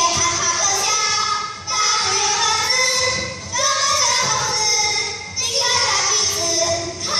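A children's song: a child's singing voice over music, in phrases about two seconds long with short breaks between them.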